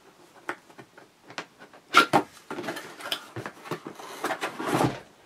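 Cardboard box being opened by hand: scattered light taps and clicks, a couple of sharper knocks about two seconds in, then cardboard rustling and scraping as the lid is slid off.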